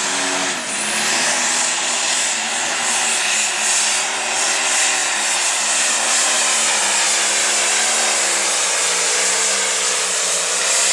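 Turbocharged diesel engine of a Light Pro Stock pulling tractor running flat out under heavy load as it drags a weight-transfer sled, a loud, steady, unbroken engine sound.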